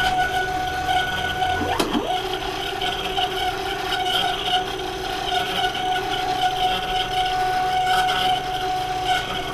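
CNC-converted Central Machinery X2 mini mill running, its end mill cutting a metal plate and throwing off chips. A steady machine whine holds through the cut, with a brief swoop down and back up in pitch about two seconds in.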